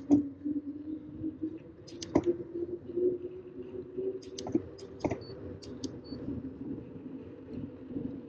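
Tandem mountain bike rolling on asphalt: a steady hum that rises a little in pitch over the first few seconds, with scattered sharp clicks and rattles from the bike.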